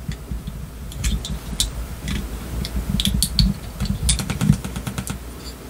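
Scattered small clicks and scrapes of a screwdriver tip prying under a plastic windshield tab inside a diecast metal model truck cab, over a low rumble of handling noise.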